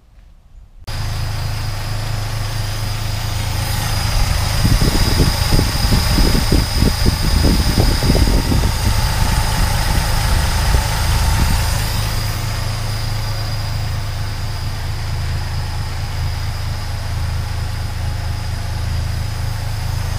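Plymouth Duster engine running on its freshly rebuilt carburetor, cutting in suddenly about a second in. It runs louder and less evenly for several seconds around the middle, then settles into a steady idle.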